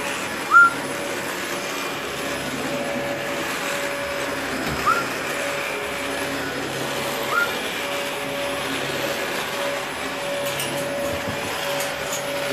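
Blue-fronted amazon parrot giving three short, upward-sliding whistles spaced a few seconds apart, the first the loudest, over a steady droning background noise.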